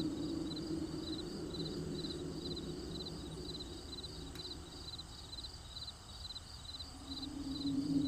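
Crickets chirping steadily in a night chorus, short high chirps about twice a second. A lower drone under them fades out midway and comes back near the end.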